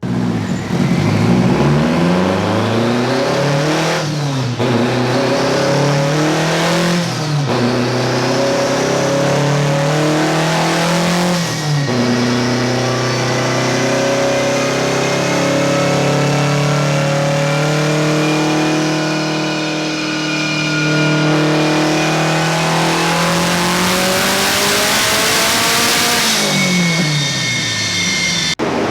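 A car's engine making a full-throttle pull on a chassis dyno. The revs climb and drop at three gear shifts in the first twelve seconds, then climb slowly for about fourteen seconds with a high whine rising alongside, before the throttle is lifted and the revs fall away near the end.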